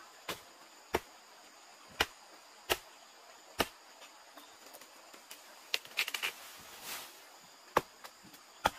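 A series of sharp, separate knocks, roughly one a second, with a quick run of several knocks about six seconds in. A steady high insect drone runs underneath.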